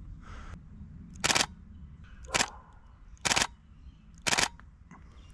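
Canon 7D Mark II DSLR shutter and mirror firing four single frames, about one a second, each a sharp clack far louder than the quiet surroundings.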